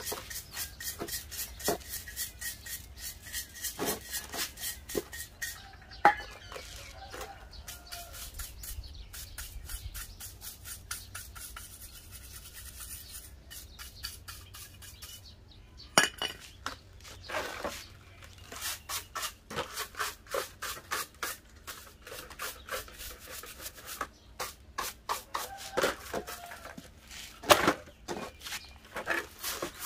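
Stiff fibre hand brush scrubbing rust and grime off an old gas stove's metal frame in quick, repeated strokes. Three louder knocks of metal come about six seconds in, around the middle and near the end.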